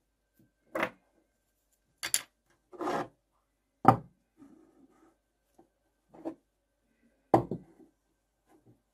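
Solid brass and gunmetal workpieces being picked up and set down on a paper-covered tabletop. About seven separate knocks and short scrapes come between quiet gaps, with the loudest knocks about four seconds in and again near the end.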